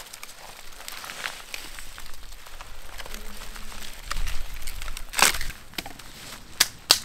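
Dry birch bark and twigs rustling and crackling under the hands as a small campfire is lit and fed, with a louder rustle about five seconds in and two sharp snaps near the end.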